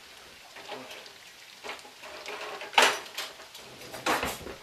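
Cookware and utensils clattering: a few light knocks, then two louder clanks about three and four seconds in.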